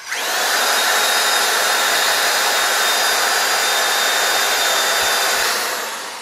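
Corded electric drill spinning a grinding wheel against a car tire's sidewall, grinding off the rubber to prep the sidewall for tire lettering. It spins up quickly with a rising whine, runs steadily under load for about five seconds, then winds down near the end.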